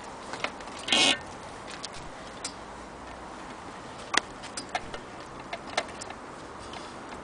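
Irregular light clicks and ticks from a vintage Frister & Rossmann 503 sewing machine being handled by hand at the needle and presser-foot area, with one louder, short rattle about a second in.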